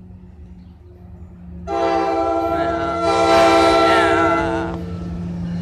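Air horn of an approaching NJ Transit ALP-45DP locomotive, sounding one long chord of several notes that starts just under two seconds in, swells louder, wavers in pitch near its end and stops after about three seconds. The train's low rumble runs underneath and carries on after the horn.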